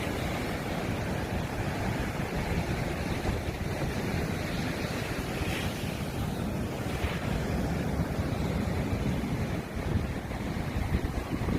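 Sea surf washing and breaking in a steady rush, with wind buffeting the microphone.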